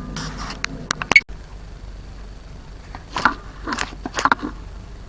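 Kitchen handling sounds: a few sharp clicks in the first second, then three or four short scrapes a little after halfway.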